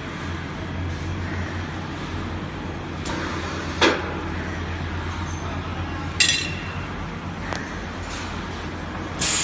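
Semi-automatic PET bottle blowing machine and its preform heater humming steadily, with a short hiss ending in a sharp clack a little under four seconds in and a sharp metallic clink with a ringing tone about six seconds in. Near the end a loud hiss of air starts.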